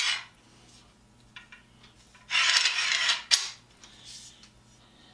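Knockoff pipe clamp being worked along a metal pipe: a short metallic scrape at the very start, a longer scrape a little past two seconds in, then a sharp click, with a few faint ticks between.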